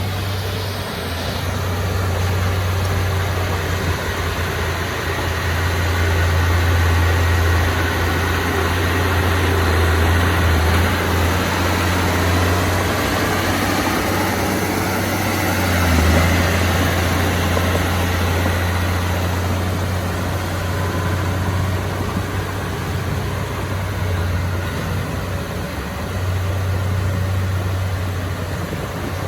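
Diesel engine of a Komatsu D31P bulldozer running: a steady low drone that swells and eases at times, loudest about sixteen seconds in.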